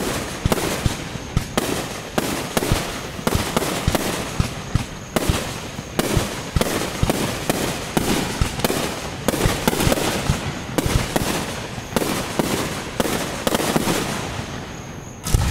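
Aerial fireworks shells bursting in rapid succession: booms and crackles come several a second, with one loud bang near the end.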